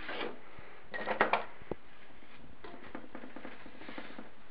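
Light clicks and taps of small parts being handled at a Wheel Horse transmission case while fitting a shift-rail detent ball and spring. A quick cluster of three or four clicks comes about a second in, then one more, then scattered faint ticks and rustling.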